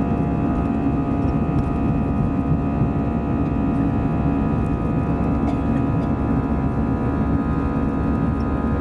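Airbus A320-214's CFM56 jet engines heard steadily from inside the cabin: a low, even rumble with several steady whining tones above it.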